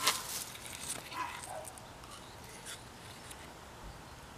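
Rustling and crackling of grass and dry leaves at the start, followed by two short animal calls about a second in, the second dropping in pitch, then a few faint rustles.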